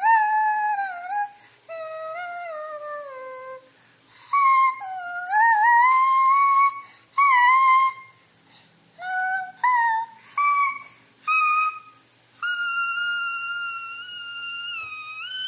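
A series of high-pitched whining cries that slide down and up in phrases broken by pauses, then a few short notes and one long held note near the end.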